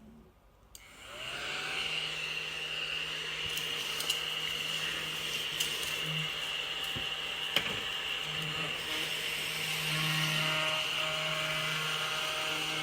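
ODISTAR battery-powered mini desktop vacuum cleaner switched on about a second in, its small motor spinning up and then running steadily with a high whine. A few sharp ticks sound over it.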